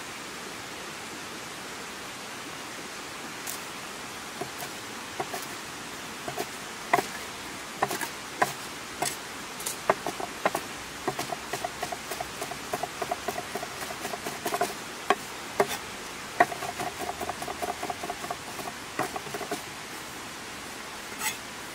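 Heavy cleaver-style chef's knife chopping fresh herbs on a wooden board. Scattered single knocks come first, then two fast runs of rapid chopping, over a steady hiss.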